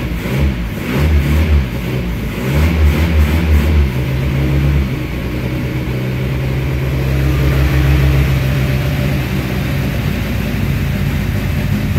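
Toyota Corolla KE55's four-cylinder engine running on its newly fitted electronic ignition: unevenly at first, with the revs rising and falling, then settling about four seconds in to a steady idle.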